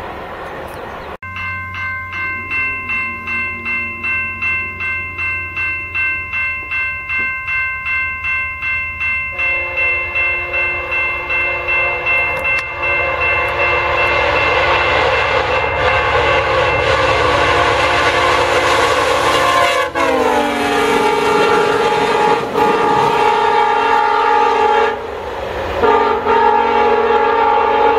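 A VIA Rail GE P42DC locomotive's air horn sounds a long chord as the train approaches at speed, its pitch dropping as the locomotive passes. The horn breaks off near the end and sounds again briefly, over the rumble of the passing passenger cars. Before the horn, a high ringing pulses about twice a second, like a grade crossing bell.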